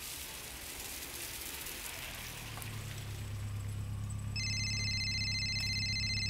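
Street hiss, then a vehicle engine humming low and steady from a little before halfway. Past the middle a steady electronic two-tone ring sounds for about two seconds and cuts off: an incoming phone call.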